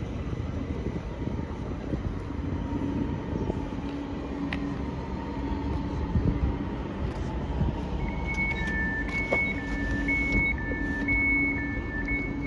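S-Bahn train running with a steady low rumble and a faint hum. About two-thirds of the way in, an electronic two-tone beep starts, alternating between a higher and a lower pitch roughly twice a second.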